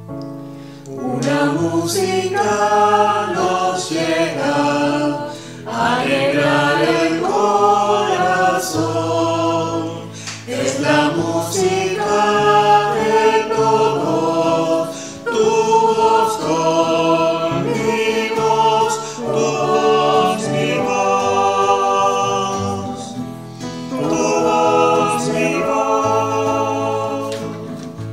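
Mixed choir of men's and women's voices singing a song, accompanied by piano and acoustic guitar. The voices are separately recorded and mixed together as a virtual choir. The singing comes in phrases with short breaks between them.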